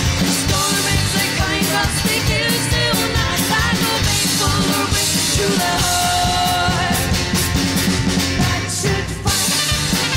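A live band playing an upbeat rock song: women's voices singing over bass guitar, guitar and a drum kit, with one long held note about two-thirds of the way through.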